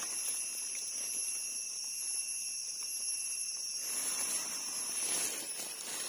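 Forest insects droning steadily at a high pitch. A faint rustle of leaves being handled comes in about four seconds in.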